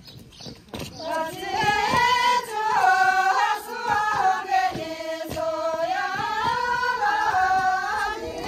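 A group of women singing a traditional Loba folk dance song together in unison, in long held notes that glide up and down. The singing starts about a second in, after a few soft knocks.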